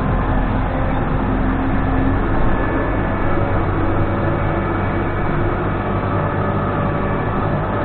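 Case 580N backhoe loader's diesel engine running steadily while the machine works.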